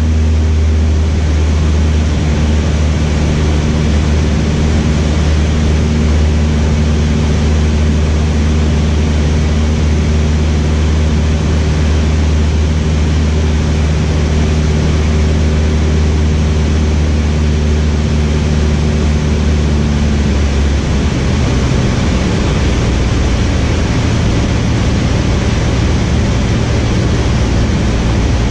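Cessna 152's four-cylinder Lycoming engine and propeller droning steadily in flight, heard inside the cabin with a rush of air noise. About three-quarters of the way through, the engine note changes pitch.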